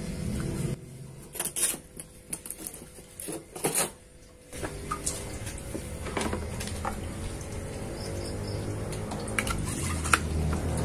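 A run of light clicks and knocks from handling, over a low steady hum that drops out about a second in and returns about halfway through.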